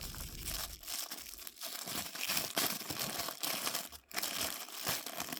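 Packaging crinkling and tearing in irregular bursts as a pocket knife is unwrapped by hand, with a short pause about four seconds in.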